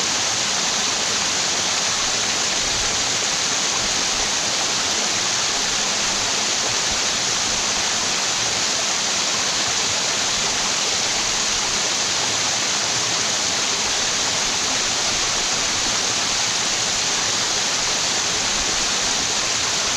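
Waterfall in a mountain stream, water pouring and splashing in a steady, unbroken rush with a hissy, bright tone.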